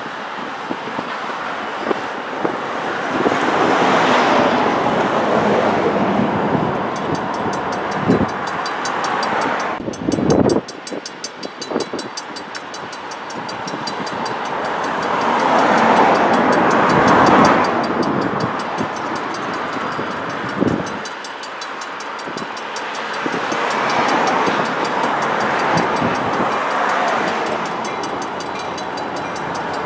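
An EMD GP40-2 diesel locomotive and its GP30 road slug running light and approaching at low speed. The GP40-2's turbocharged V16 EMD 645 engine gives a steady running sound that swells and fades. There are a few sharp knocks about a third of the way in.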